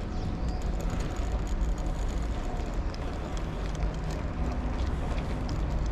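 Riding a bicycle along a city street: a steady low rumble of wind on the microphone and tyres on the road, with scattered light clicks and rattles.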